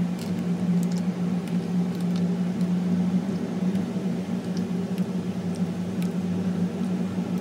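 A steady low motor hum, the loudest thing, over the soft hiss and splash of coconut-milk pudding mixture pouring from a jug into plastic cups, with a few faint clicks.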